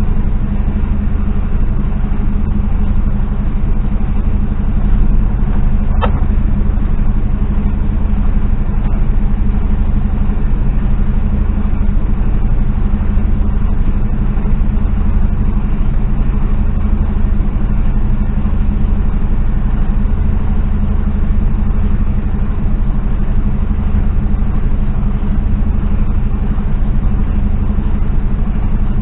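Mercedes Actros lorry's diesel engine running with a steady low drone, heard from inside the cab. There is a faint click about six seconds in.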